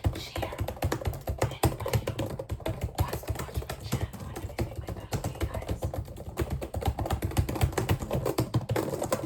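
Rapid, irregular clicking and tapping, many clicks a second, made for ASMR.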